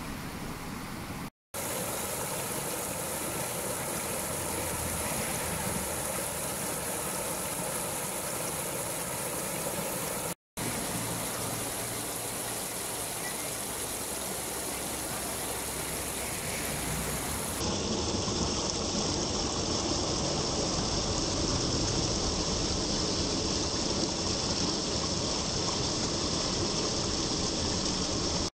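Rushing floodwater as a steady noise: first a muddy flash-flood torrent pouring over rocks, then water spilling over a low rock cascade into a foamy pool. The sound drops out briefly twice, about a second and a half in and about a third of the way through, where the footage is cut.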